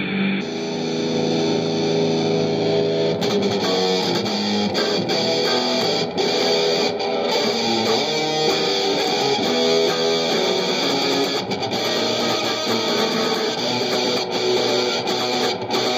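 Electric guitar being played continuously, a changing run of chords and single notes ringing on over one another.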